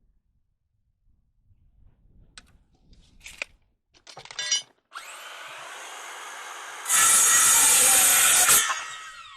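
A few light knocks of the wood being handled, then a power saw starts and runs free, cuts through a 2x4 for about a second and a half, and winds down with a falling whine.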